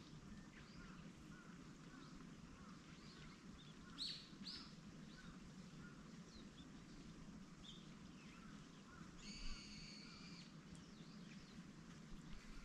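Faint outdoor quiet with small birds chirping here and there, two sharper chirps about four seconds in. Near the end comes a steady tone with a few overtones, lasting about a second.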